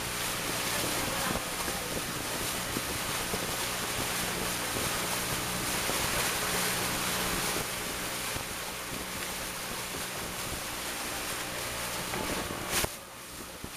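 A boat's motor running steadily under water rushing past the hull, with wind buffeting the microphone. Near the end there is a sharp click, after which everything is quieter.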